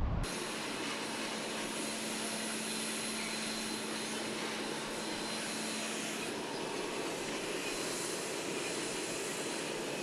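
Jet airliner engines running: a steady rush with a thin high whine, and a low hum that drops out about six seconds in.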